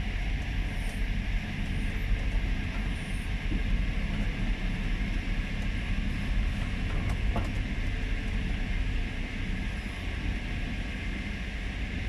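Steady low engine rumble and road noise heard from inside a vehicle's cab as it drives slowly down a rough dirt logging road, with a few faint knocks around the middle.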